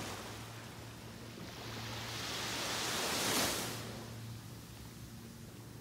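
Small waves breaking and washing up a sandy beach: a hiss of surf that swells to a peak about three seconds in, then fades.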